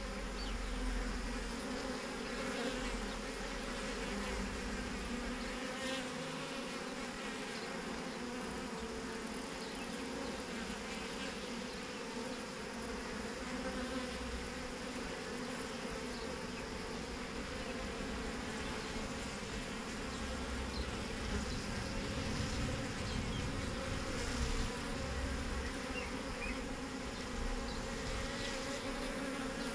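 Swarm of honeybees buzzing in a steady, unbroken hum as the swarm is hived, the bees making their way into a hive box.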